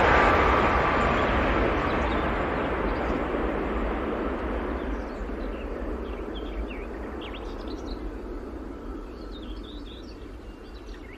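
Rumble of a DB ICE 1 (class 401) high-speed train dying away steadily after it has passed, with a faint whine early on. Birds chirp over it from about three seconds in.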